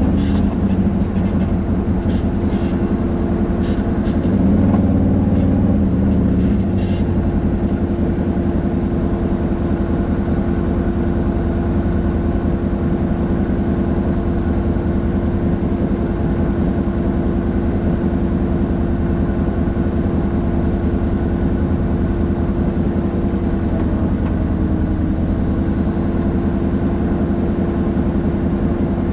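Side-by-side UTV engine running at a steady drone while driving a rough dirt trail, with sharp knocks and clatter from the bumpy ground during roughly the first seven seconds.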